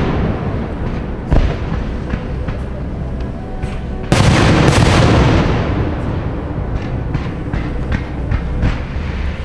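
Aerial firework shells bursting: a sharp bang about a second in, then a big loud burst about four seconds in that slowly fades, followed by scattered smaller pops and crackles.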